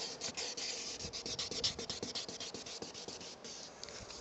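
Wet sandpaper rubbed by hand over a car's plastic side-mirror housing in quick back-and-forth strokes, sanding down peeling clear coat.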